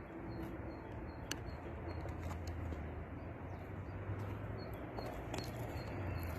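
Electric drive of a radio-controlled Hino 700 6x6 model truck running, a low hum that swells and eases with the throttle, with a few sharp clicks and faint high chirps over it.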